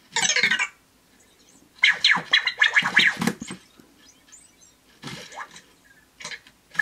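Anki Vector robot's electronic chirps and warbling, gliding bleeps: a short burst at the start, a longer run about two seconds in, then a few fainter ones near the end. It is the robot's response to a voice command that it did not understand.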